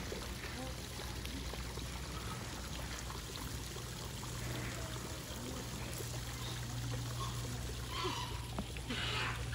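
Running water pouring and trickling steadily into a pond, over a steady low hum. A couple of short, brighter sounds come near the end.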